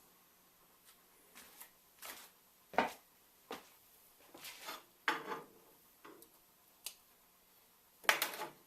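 Steel parts and tools being handled on a workbench, with a run of separate, irregular metal clinks and knocks. The loudest come about three seconds in and near the end.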